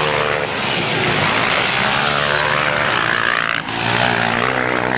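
Motocross dirt bike engines revving hard as the bikes ride past, their pitch rising and falling; about three and a half seconds in, another bike's engine climbs in pitch as it accelerates.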